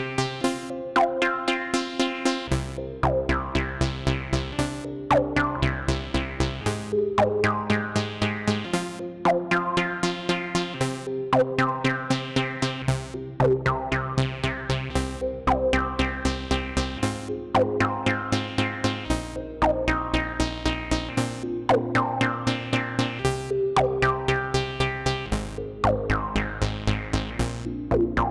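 Analogue Solutions Polymath paraphonic analog synthesizer playing an electronic jam: held chords that change every two seconds or so under a fast, even pulsing sequence, with a falling filter sweep about once a second.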